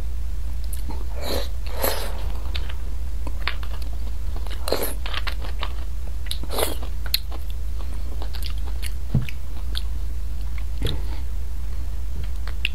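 Close-miked eating of beef bone marrow: a spoon working marrow out of split bones, and chewing, heard as irregular short clicks over a steady low hum.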